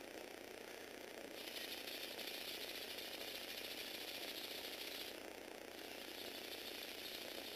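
Lego Technic tracked vehicle's motors and plastic gears running, a steady fine ratcheting rattle of gears and track links. A louder, higher whir comes in about a second and a half in, stops briefly around five seconds, then starts again.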